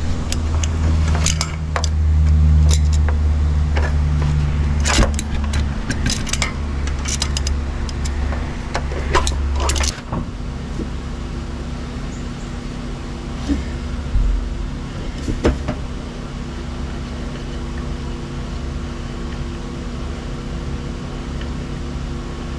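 Metal clicks and clinks of locking pliers working the oil pressure sender loose from the engine block, over a low steady rumble that stops about ten seconds in. After that only a few scattered clicks.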